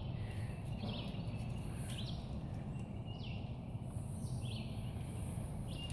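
A bird repeating a short, falling chirp about once a second over a steady low rumble of outdoor background noise.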